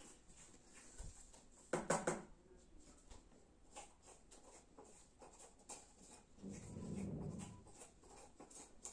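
Small knife scraping out the flesh of a zucchini as it is cored: a run of short, quick scrapes and clicks, with one louder scrape about two seconds in.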